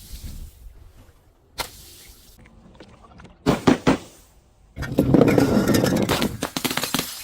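Glass being smashed: a couple of sharp knocks, then about two and a half seconds of dense crunching and crackling as the glass shatters and grinds.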